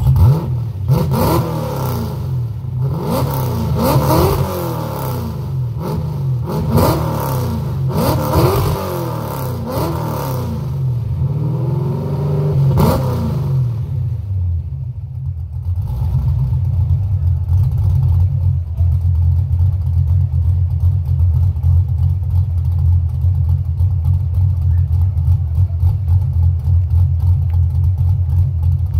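1988 Ford Mustang GT's 5.0 V8 with a Trickflow Stage 1 cam and headers, heard at the exhaust, revved in about six quick blips that each climb and fall back during the first half. After a brief dip about halfway through, it settles into a pulsing, lopey cammed idle.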